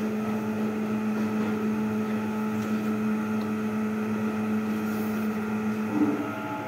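A steady low machine hum, one strong low tone with fainter higher tones above it; about six seconds in the hum shifts to different tones.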